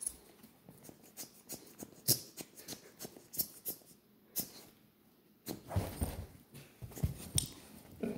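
Puppy chewing and biting on a hand-held plush squeaky toy: a run of irregular sharp clicks and crunches of teeth on the toy. There is a louder, denser stretch from about five and a half to seven and a half seconds in.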